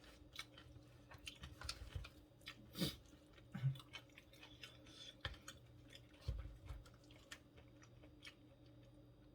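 Close-miked chewing of stir-fried pork intestines (gopchang): soft wet smacks and small clicks of the mouth, a little louder around three seconds in.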